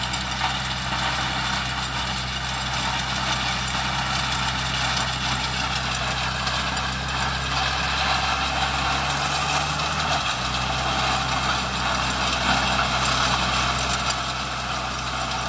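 Diesel engine of a StrongBull sugarcane harvester running steadily under load as it cuts into standing cane, with a dense rushing noise from the stalks being cut and fed through. The engine note shifts slightly about ten seconds in.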